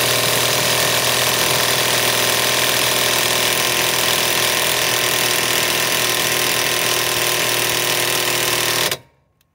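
Kobalt KIW1240 24-volt cordless mid-torque impact wrench hammering steadily in reverse against a 1-1/2 inch nut without breaking it loose. It cuts off abruptly near the end.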